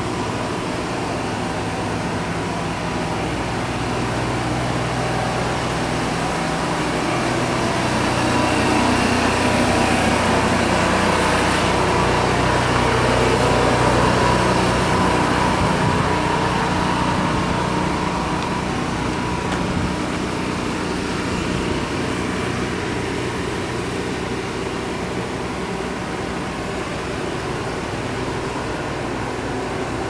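Steady machine hum with several held tones, like an engine or air-conditioning unit running, growing louder about a third of the way in and easing back after the middle.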